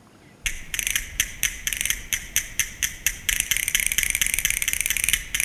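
Castanets clicking in a quick rhythm, about four strokes a second, running into a continuous roll a little past the middle, as a song's percussion intro.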